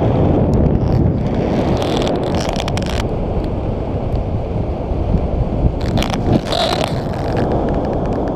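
Wind from the paraglider's airspeed buffeting the microphone as a steady, heavy rush, with a few sharper flaps and rustles about two seconds in and again around six seconds in.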